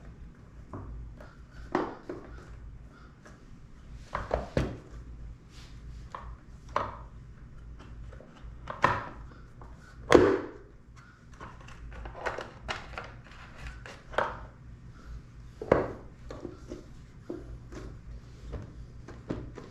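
Irregular clicks, taps and knocks of hands and small tools working on the plastic body and parts of a drone during a motor repair, the loudest knock about halfway through, over a faint steady low hum.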